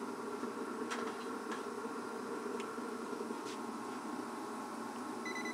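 A steady low hum, like a small motor or fan running, with a few faint ticks, and a short electronic beep near the end.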